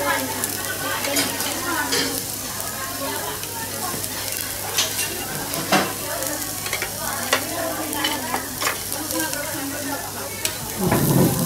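Chicken wings sizzling on a tabletop Korean barbecue grill: a steady hiss with scattered sharp pops. A louder low thump comes near the end.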